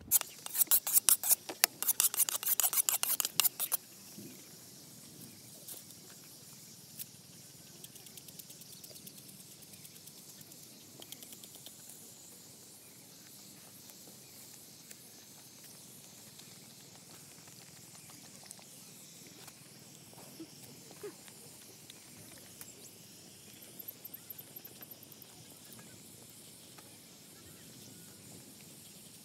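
Small wood fire of dry sticks crackling loudly for the first few seconds. Then a quiet outdoor stretch with scattered light taps and clicks as a cleaver cuts eggplants by hand.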